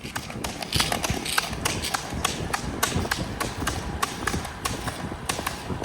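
Roller ski pole tips striking asphalt in a quick, regular rhythm of about three clicks a second, over the steady rolling noise of roller ski wheels, during a hard double-pole sprint effort.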